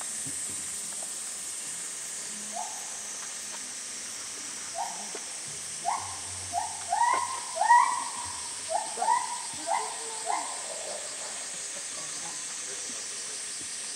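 Steady high-pitched hiss of summer insects, typical of cicadas, with a run of about a dozen short, clear calls rising in quick succession from about two and a half to ten and a half seconds in.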